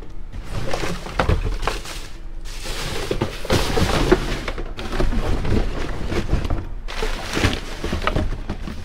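Rustling with irregular thunks and knocks, the sound of things being rummaged through and moved about by hand.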